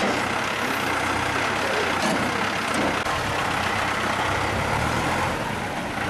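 Flatbed tow truck's engine running with a steady hum, with a couple of short knocks about two seconds in.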